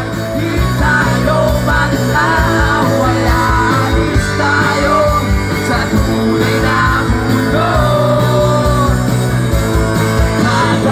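Live rock band playing amplified through a PA, with electric guitars and drums under a singer carrying the melody over a steady beat.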